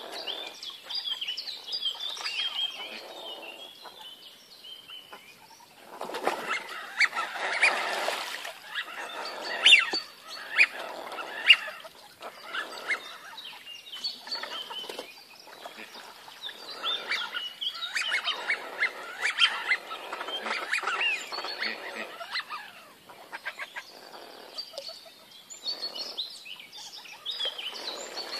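A flock of dabbling ducks, wigeon and pintails among them, calling on the water: many short overlapping calls and whistles. The calling is busiest about six to twelve seconds in, with a few sharp loud calls, and again from about seventeen to twenty-two seconds.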